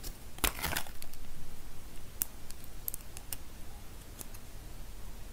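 Close-up handling of a paper instruction leaflet and small plastic toy pieces: a short burst of paper crinkling about half a second in, then several single sharp clicks of the plastic parts.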